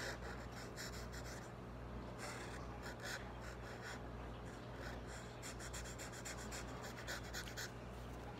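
Sharpie felt-tip marker scribbling on paper, in runs of quick strokes with short pauses between them.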